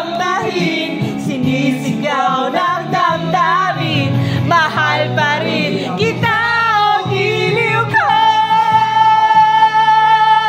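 A man singing a Tagalog love song into a karaoke microphone over the backing track, ending on a long held note from about eight seconds in.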